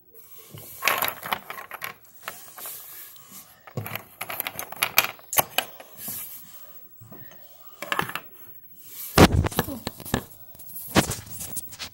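Plastic mini football helmets clacking and knocking together as they are handled, an irregular run of clicks and taps, loudest about nine seconds in.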